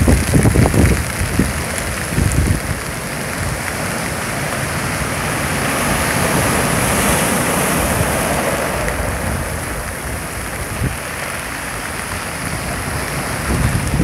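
Rough storm surf from an approaching typhoon, breaking and washing over shore rocks: a continuous rush of foaming water that swells about halfway through and then eases. Wind buffets the microphone in the first second.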